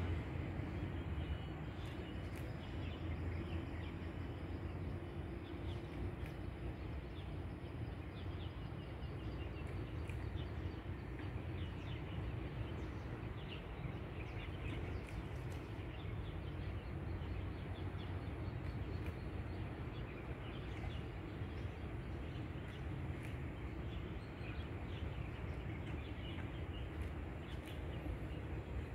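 Outdoor lakeside ambience: many small birds chirping in quick, scattered notes over a steady low rumble.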